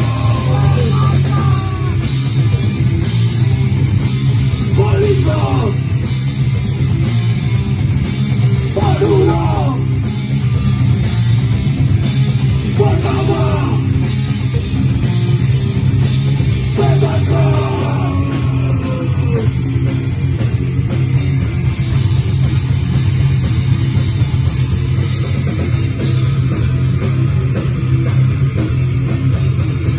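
Metal/hardcore band playing: guitar and drum kit over a heavy, steady low end. Shouted vocal lines come in short bursts about every four seconds through the first twenty seconds, then the instruments carry on alone.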